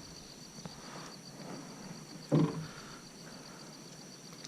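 Insects chirring steadily in the background as a high, finely pulsing drone. About two seconds in, a person makes one brief, pitched vocal sound, the loudest thing heard.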